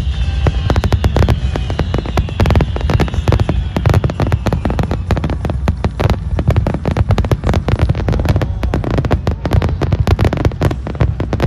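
Fireworks display: a dense, continuous run of bangs and crackles, many a second, over a steady low rumble, with a few falling whistles in the first couple of seconds.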